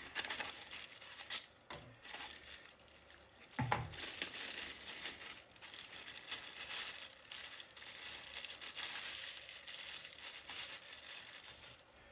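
Packaging wrapped around a lathe tool holder being crinkled and torn open by hand, a dense crackling with many small clicks, with a soft knock about three and a half seconds in.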